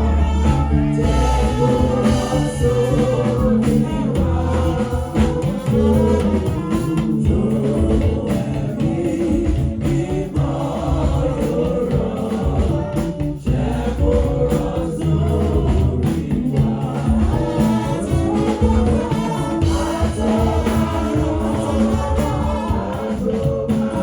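Gospel song sung by a group of voices over a band, with a steady bass line and percussion.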